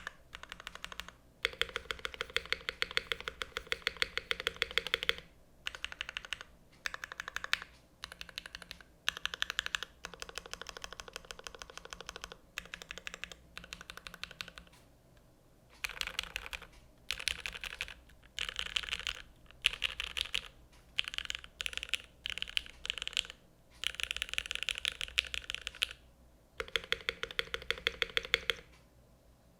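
Typing on a Velvet Pro 60% mechanical keyboard with a stainless steel bottom case, Gateron X switches and GMK keycaps: fast runs of keystrokes in bursts broken by short pauses, going sparser and quieter for a couple of seconds near the middle.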